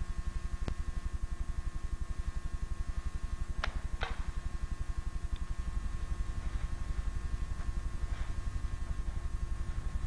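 Steady low hum with a rapid, even pulse and a faint high whine, with a few short sharp clicks, the strongest two around four seconds in.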